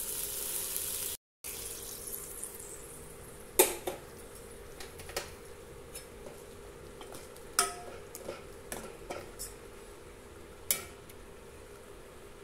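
Oil sizzling in a kadai for about a second. Then a steel ladle stirs dal in a stainless-steel pot, scraping and clinking against the metal, with three sharp clinks standing out.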